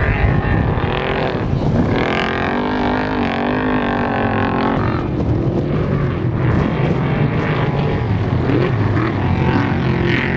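Off-road race vehicle engines running hard, one revving up and down in pitch between about two and five seconds in.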